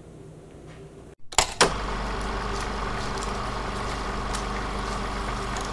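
Old-film sound effect under a title card: two sharp clicks about a second and a half in, then a steady low hum with hiss and scattered crackles.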